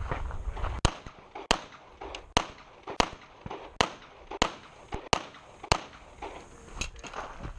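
Handgun shots fired one at a time at a steady pace, about nine in all, roughly one every 0.6 to 0.9 seconds, beginning about a second in.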